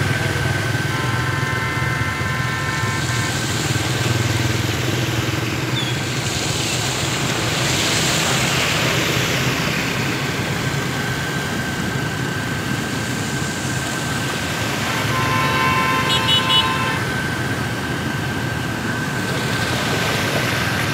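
Motorbikes driving through flood water, their small engines running under a steady wash of splashing from the wheels that swells as each one passes. A horn sounds twice: a held note about a second in, then short beeps about fifteen seconds in.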